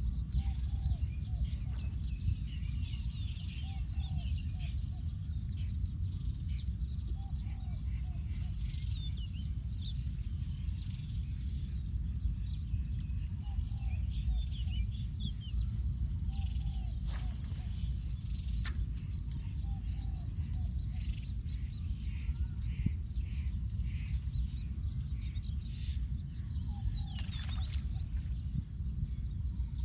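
Open-field outdoor ambience: wind rumbling on the microphone, with many birds chirping and a steady high-pitched whine.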